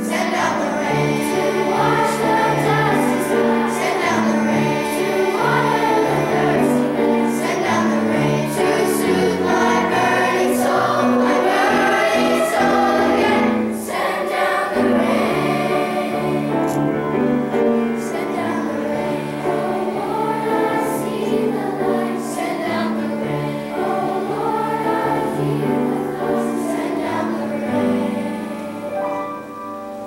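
Mixed boys' and girls' middle-school choir singing together, getting softer near the end.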